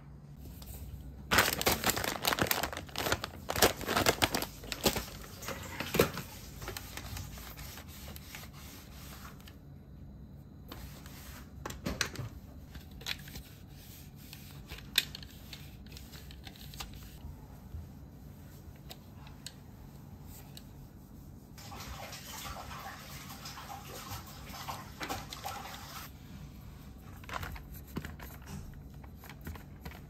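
Hand-cleaning of a Dyson cordless stick vacuum: scattered plastic clicks and knocks as the clear dust bin and cyclone body are handled, and a few seconds of rubbing past the middle as parts are wiped with a cloth. The loudest part is a dense burst of clattering in the first few seconds.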